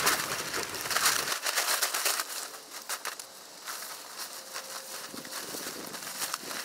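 A large plastic groundsheet being shaken out and unfolded: crinkling, flapping rustles, loudest in the first couple of seconds, then softer rustles as it is laid out.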